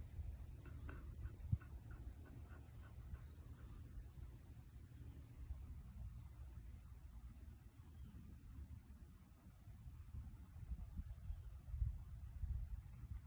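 An insect chorus trilling steadily at a high pitch, with a brief brighter pulse every two to three seconds. A low rumble sits underneath.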